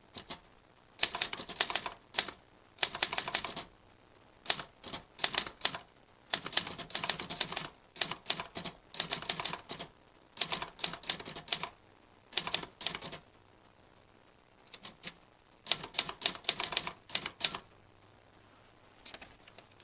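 Typewriter keys being struck in quick runs of clicks, each run a second or so long with short pauses between them. A few faint strokes come near the end.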